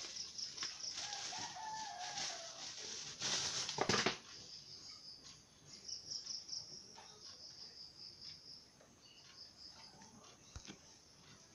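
Bubble-wrap packaging rustling and crinkling as a lantern is pulled out and handled, loudest in a burst about three to four seconds in, with scattered small clicks afterward. Insects chirp steadily in the background.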